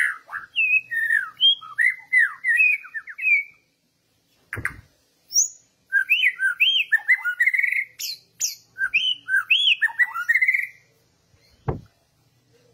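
Caged oriental magpie-robin singing two runs of quick, varied whistled notes, sliding up and down, with a few higher squeaky notes. Two short thumps come in the pause between the runs and near the end.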